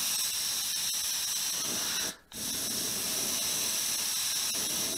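Airbrush spraying paint: a steady hiss of compressed air that stops for a moment just after two seconds, then resumes and cuts off near the end.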